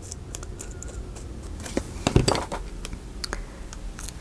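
Hands handling paper and craft materials on a tabletop: a scatter of light clicks, taps and rustles, the loudest a sharper tap about two seconds in.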